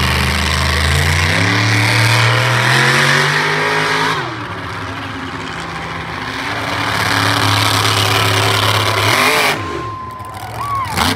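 Monster truck engine revving hard, its pitch climbing for about four seconds, dropping off suddenly, then held high and steady before letting off near the end.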